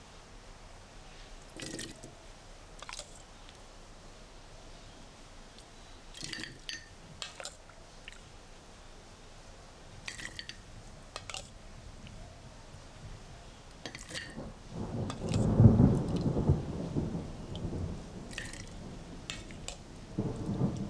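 Kitchen preparation sounds: a scattering of light clicks and knocks a few seconds apart, then a louder, low, rushing rumble with a splashing quality about fifteen seconds in, and again near the end.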